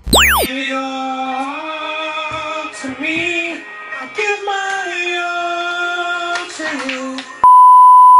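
A short swooping glide effect, then a woman singing a melody without accompaniment. About seven seconds in, the singing is cut off by a loud, steady test-tone beep.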